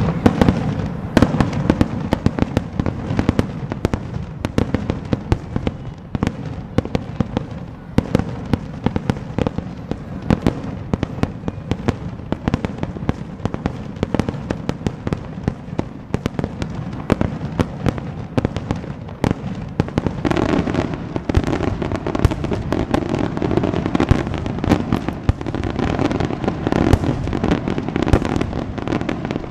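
Daytime aerial fireworks going off in a rapid, continuous barrage of bangs and crackling reports. The barrage grows denser and louder about two-thirds of the way through.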